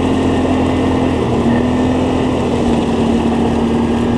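ATV engine running steadily under way, its pitch holding nearly level and easing slightly lower, over a heavy rush of riding noise.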